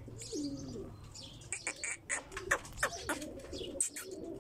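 Birds calling: repeated low, wavering cooing calls under many short, sharp high chirps.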